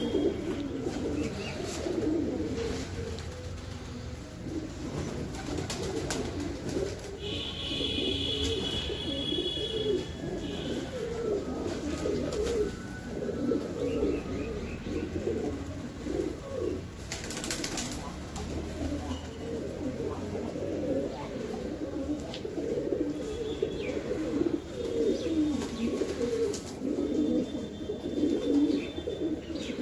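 A flock of domestic pigeons cooing continuously, many low coos overlapping one another. A higher, steady note sounds for a few seconds about a quarter of the way in and again near the end.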